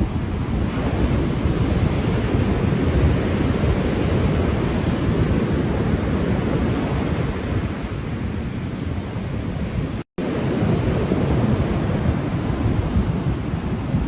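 Ocean waves washing in steadily, a continuous surf rush weighted toward the low end. The sound cuts out completely for a split second about ten seconds in, then resumes.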